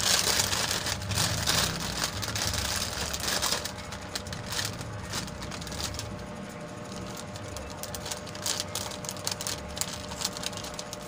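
Plastic courier mailer bag crinkling and rustling as it is pulled and torn open by hand: a dense crackle over the first few seconds, then short separate crinkles.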